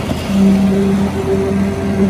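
Small engine running at a steady, unchanging pitch, a constant drone, on a concrete pour.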